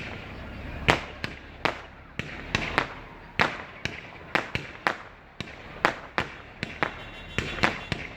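Fireworks going off: an irregular run of sharp bangs, about two a second, each with a short echoing tail.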